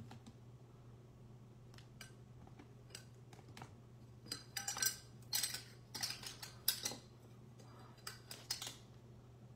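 Clear plastic card stands and rigid plastic card holders being handled and set down: a scatter of light plastic clicks and clatters, sparse at first and busiest in the second half, over a steady low hum.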